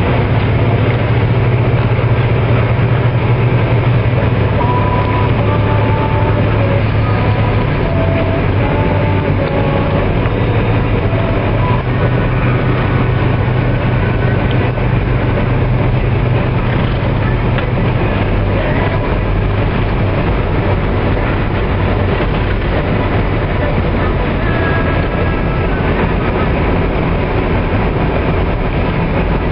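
Vehicle engine drone and tyre and road noise heard from inside the cabin while driving at speed, a steady low hum under an even rush.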